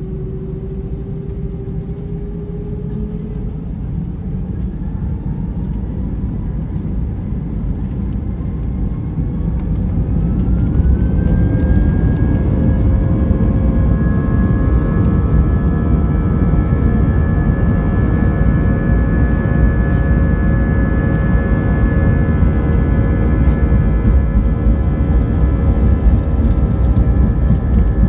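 Airbus A319's jet engines heard from inside the cabin spooling up to take-off thrust. About ten seconds in, a whine rises in pitch and the roar grows louder, then both hold steady over a deep rumble.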